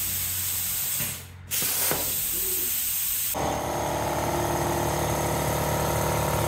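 Hypertherm plasma cutter on a CNC table blowing a steady hiss of torch air, with a brief drop about a second in. From about three seconds in, a steady multi-tone hum runs along with the hiss.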